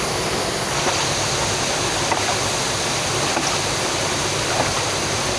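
Hydraulic ram pump running on its own: water rushing out through the waste valve, with the valve knocking shut about once every second and a bit. The knock has begun to sound full, a sign that the trapped air has been bled from the drive pipe.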